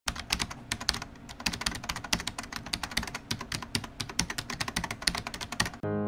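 Rapid, irregular clicks of computer keyboard typing. The typing stops just before the end, when piano music comes in.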